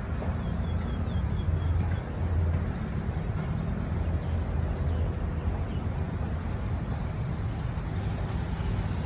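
Steady low rumble of city road traffic, with a few faint high chirps in the first two seconds.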